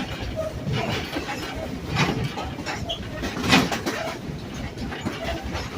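Passenger train running along the track, heard from aboard: a steady rumble of the cars with irregular clacks of the wheels over the rail joints, the loudest about three and a half seconds in.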